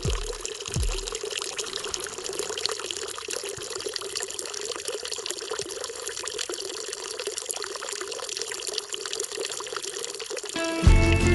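A thin stream of water from a spout pouring steadily into a stone trough full of water, splashing evenly. Two short low thumps near the start, and music cuts in just before the end.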